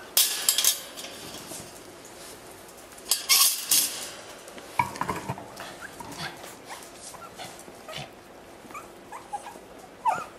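The wire playpen clatters with two sharp metallic rattles, near the start and again about three seconds in, as its door is shut. Three-week-old Cavalier King Charles Spaniel puppies then squeak and whimper in short, high little cries.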